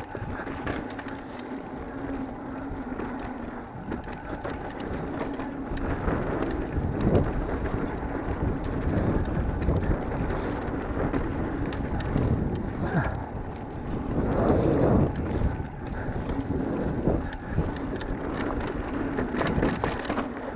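Mountain bike riding fast down dirt singletrack: tyres rolling over dirt and loose rock, with the bike rattling and clicking over the bumps and wind rushing across the microphone.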